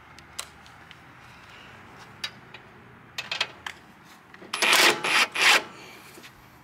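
Handling noise of a cordless drill/driver being fitted onto a bolt on a mower's metal frame: scattered light clicks and taps, then two louder scraping rubs about four and a half and five seconds in. The driver's motor is not running.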